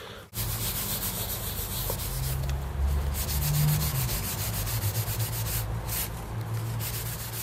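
Rubbing and scuffing as the plastic case of a handheld oscilloscope is handled and turned over in the hands close to the microphone, over a steady low rumble.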